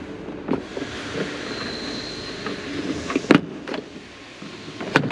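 Plastic rear quarter trim panel being pulled off by hand, giving a few sharp clicks and knocks as its clips and plastic let go, the loudest a little past three seconds in, over a steady hiss.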